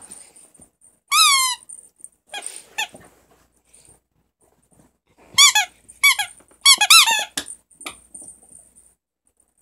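Squeaky plush toy squeaked as a puppy bites and tugs on it: one long squeak about a second in, a couple of short ones, then a run of short squeaks falling in pitch, the loudest between about five and seven seconds in.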